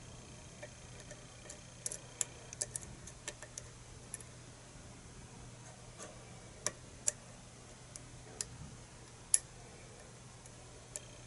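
Faint, irregular small clicks and ticks of a lock pick working the pin stacks of a pin-tumbler KIK cylinder under tension, one a little sharper about nine seconds in.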